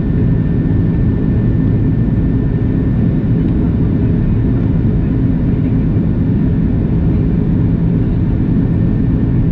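Airbus A330-200 jet engines heard from inside the passenger cabin: a loud, steady low rumble with a faint steady hum over it.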